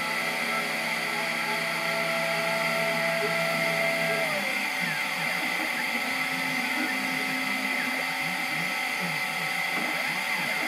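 Stepper motors of a CNC 3018 laser engraver whining as the laser head is driven over the work. The whine holds steady tones for the first four seconds or so, then turns into quickly shifting, wavering tones as the head traces the lettering, over a steady high-pitched hum.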